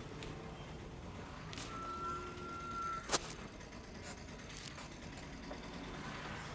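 Street background with traffic hum; about two seconds in, a single steady high beep lasting just over a second, cut off by a sharp loud click, with a few fainter clicks after.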